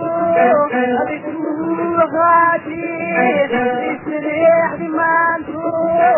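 Somali song: a man singing a melody over instrumental backing, in held and bending notes.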